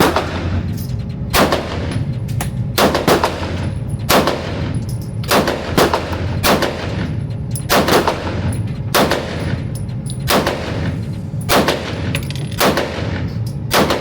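A steady series of handgun shots, roughly one every second and often in quick pairs, about twenty in all, each a sharp crack with a short ringing tail.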